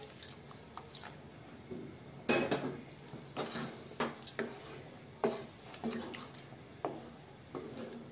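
Wooden spatula stirring a pea curry thinned with water in a non-stick pan: irregular scrapes and knocks of the spatula against the pan, the loudest about two seconds in.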